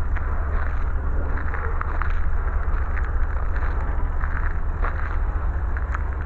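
Canadian Pacific coal train's freight cars rolling past: a steady heavy rumble with frequent short clicks and squeaks from the wheels on the rails.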